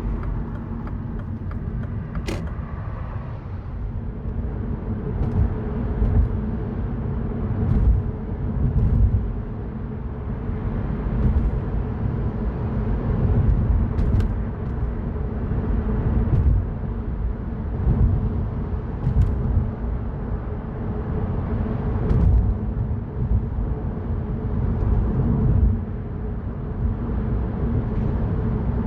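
Mini Cooper Cabrio being driven, heard from inside the cabin: a steady low rumble of engine and road noise with a constant engine hum. A few sharp clicks cut through, the clearest about two seconds in.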